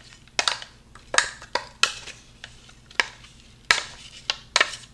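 Irregular sharp taps and knocks, about eight, as a plastic food-processor bowl is emptied of buttered graham-cracker crumbs into a ceramic baking dish, with the crumbs rustling in between.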